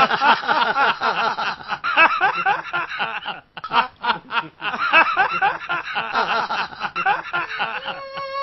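Several men laughing together, breaking off briefly a little before the middle. A held violin note comes in at the very end.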